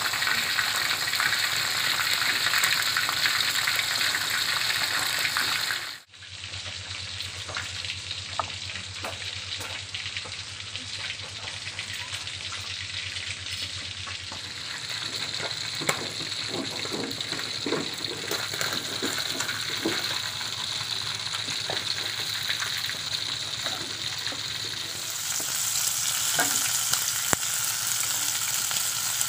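Hot oil sizzling in a wok as catfish fry, loud and steady at first. After a cut about six seconds in the sizzle is quieter with scattered small clicks, and about 25 seconds in it brightens as tomatoes, shallots and green chilies fry in the wok, stirred with a metal slotted spatula.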